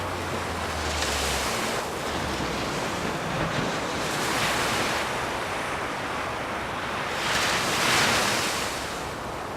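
Ocean waves breaking and washing through the surf: an even rushing noise that swells several times, loudest about eight seconds in.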